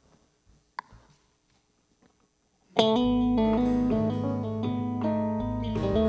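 Near silence with a faint click, then about three seconds in a worship band starts the offertory song's introduction: picked guitar notes over a steady bass line.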